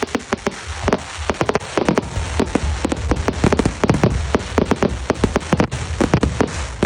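Fireworks going off in rapid succession: many sharp pops and crackles a second over a low rumble.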